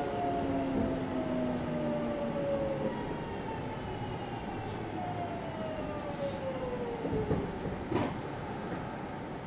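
Kintetsu 1031-series electric commuter train standing at a station with its doors open, its equipment giving a steady hum. Two tones slowly fall in pitch, one in the first few seconds and one in the second half, and there is a short knock about eight seconds in.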